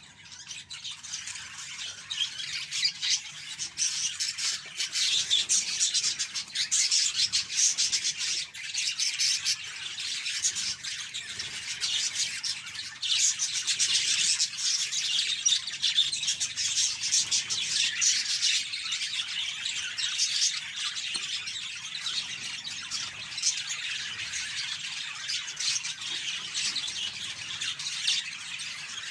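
A flock of budgerigars chattering continuously, a dense overlapping mix of chirps and warbles with no pauses.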